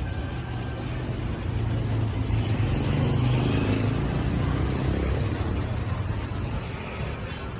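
Street traffic: a motor vehicle's engine rumbling past, growing louder to about three seconds in and then fading away.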